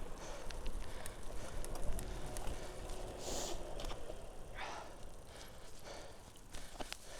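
A bicycle being ridden: steady tyre and wind rush with scattered clicks and rattles, growing quieter toward the end.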